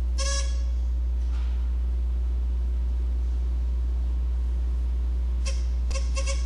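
Buzzer of a steady-hand wire game going off as the wand touches the copper rod: one short buzz just after the start and several brief buzzes near the end. A steady low electrical hum runs under it throughout.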